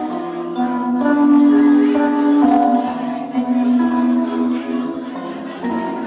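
Live band music: hollow-body electric guitar and vibraphone playing held, ringing notes.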